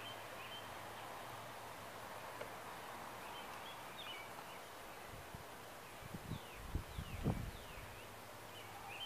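Outdoor yard ambience: a steady hiss with short high chirps from birds now and then, and a few low thumps about six to seven and a half seconds in.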